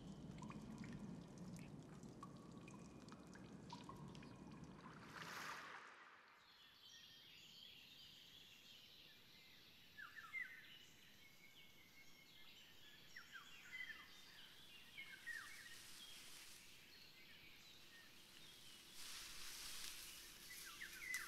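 Faint cave ambience with scattered water drips over a low hiss. After about six seconds it gives way to quiet woodland ambience with birds chirping faintly.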